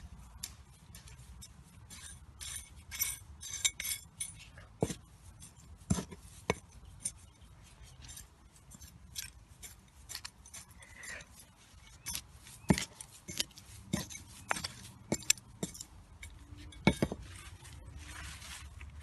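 Irregular clicks, clinks and taps of small hard objects being handled, with several sharper knocks scattered through.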